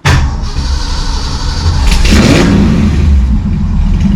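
1965 Ford Mustang Fastback's engine starting and running, first start after a fresh oil change. It catches suddenly and runs loud, with a brief change in its sound about two seconds in before settling into a steady run.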